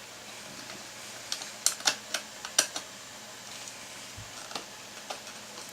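Sharp plastic clicks and clatter of computer cables and connectors being handled and pushed into place, a quick run of about eight clicks in the middle and a few lighter ticks after.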